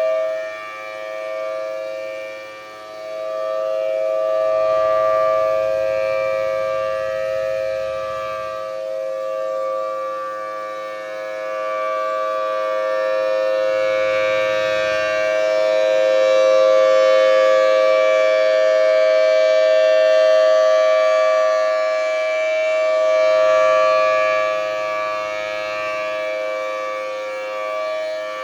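Federal Signal Thunderbolt outdoor warning siren sounding a test, holding a steady two-note chord. Its loudness slowly swells and fades over several seconds as the rotating head sweeps around.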